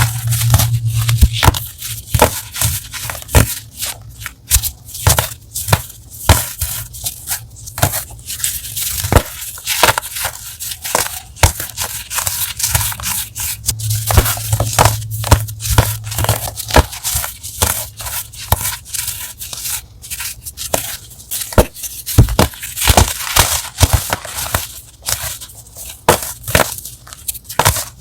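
Crunchy ASMR chalk being crushed close to the microphone: a dense, irregular run of crisp crackles and crunches.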